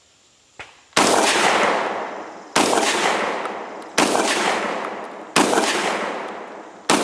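SDS Titan TTF-12 semi-automatic 12-gauge shotgun fired five times in steady succession, about a second and a half apart, each loud shot trailing off in a long echo; the action cycles every shell on its own. A light click comes just before the first shot.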